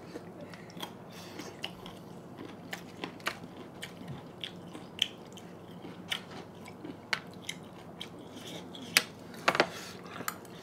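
Close-miked chewing of pork curry: wet mouth clicks and smacks at an irregular pace, with a louder cluster of clicks near the end.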